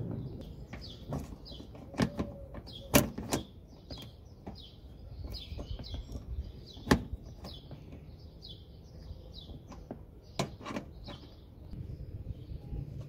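Small birds chirping over and over, with a few sharp metallic clicks and knocks from a socket wrench on a universal-joint extension as a bolt is worked loose in the wheel arch.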